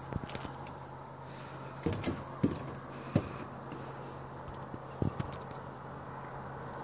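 A few irregular short knocks and clicks, about six in all, over a steady low hum.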